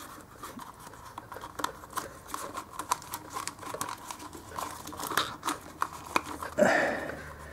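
Rubber wiring shroud and plastic multi-pin connectors being handled and pushed over one another: scattered small clicks, rustling and rubbing.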